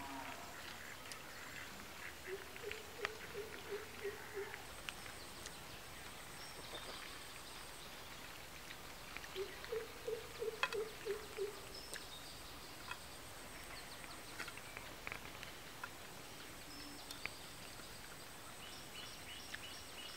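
An animal calling in two runs of about eight quick, evenly spaced calls each, roughly four a second, with faint bird chirps around them.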